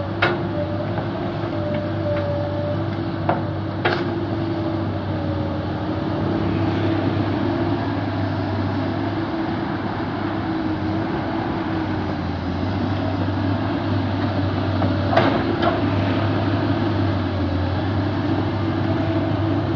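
Hydraulic excavator's diesel engine running steadily at work, its pitch wavering slightly, with a few sharp knocks from the machine: one just after the start, then two close pairs about 4 s and 15 s in.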